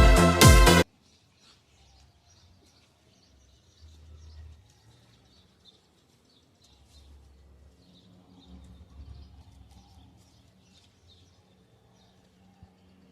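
Electronic background music that cuts off suddenly about a second in, leaving faint birds chirping over a low rumble that swells twice, typical of wind on the microphone.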